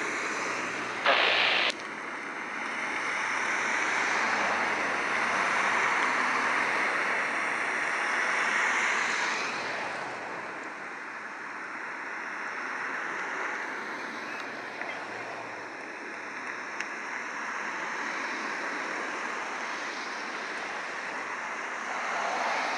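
The Snowbirds' nine CT-114 Tutor jets passing in formation, a distant rushing jet roar that swells over the first ten seconds and then settles lower. A short sharp hiss sounds about a second in.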